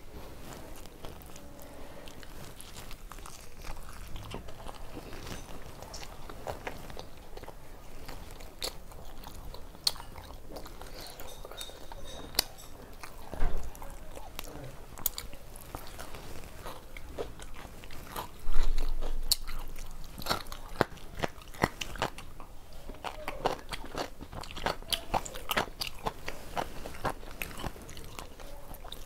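Close-up chewing and biting of a person eating tandoori roti with mutton keema by hand, with many short wet mouth clicks and smacks. There are two louder thumps, about thirteen and eighteen seconds in.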